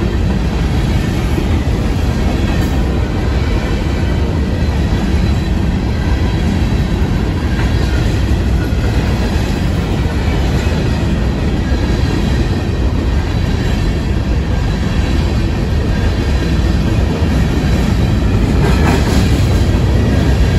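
Freight train of loaded covered hopper cars rolling past: a steady rumble of steel wheels on the rails with faint clicking at the rail joints, growing a little louder near the end.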